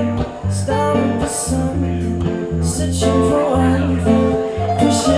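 Live band playing a reggae song: strummed guitar over a steady bass line, with cymbal or percussion hits.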